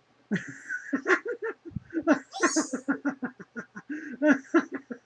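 A person laughing: a long run of quick, rhythmic ha-ha pulses with breathy intakes, starting just after the opening.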